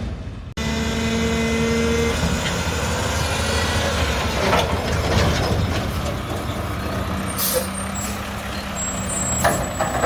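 Mack garbage truck with a McNeilus front-loader body running, its diesel engine rumbling steadily, with a steady whine in the first couple of seconds and a few short sharp noises mixed in.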